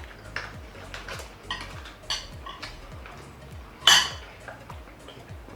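Cutlery clinking and scraping against plates and food dishes in a run of short, irregular clicks, with one louder clatter about four seconds in.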